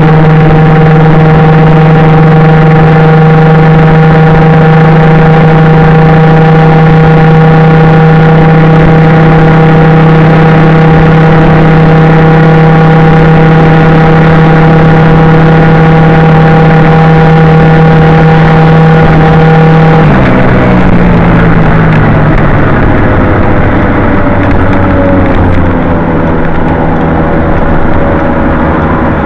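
Honda Gyro Canopy scooter's small engine through a Moto Repair Galuzu II aftermarket exhaust, heard on board, holding a steady drone at cruising speed. About two-thirds of the way through the pitch falls as the throttle comes off and the scooter slows.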